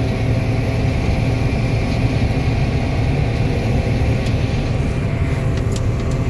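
Combine harvester running steadily while harvesting corn: a constant low drone of engine and threshing machinery, with a few faint ticks in the last two seconds.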